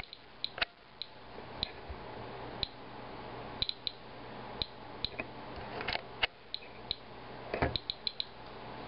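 Inspector Alert Geiger counter clicking at irregular, random intervals, about two a second with occasional quick clusters, as it counts radiation from a paper towel wiped off a rain-wet car. The rising count is what the owner reads as radioactive rain.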